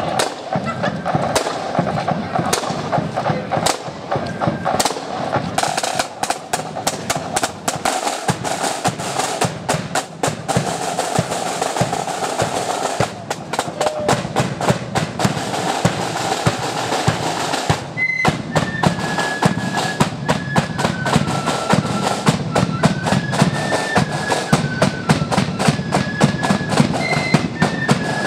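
Marching flute band: snare and bass drums play a rapid drum beat with rolls, then, about two-thirds of the way in, the flutes come in with a tune over the drums.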